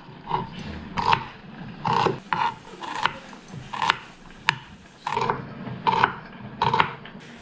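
Kitchen knife slicing a red onion on a wooden cutting board: about ten uneven cuts, roughly one a second, each a short crunch through the onion, several ending in a sharp knock of the blade on the board.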